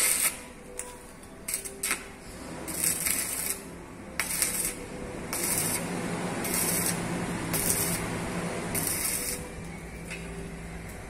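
Stick (arc) welding on a steel door rail: a string of crackling, sizzling arc bursts. First come a few very short strikes, then about six welds of roughly half a second each.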